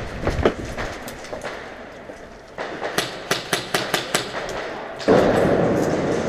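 A quick string of about ten sharp airsoft gun cracks in under two seconds. About five seconds in, a sudden loud rustling rush sets in and holds.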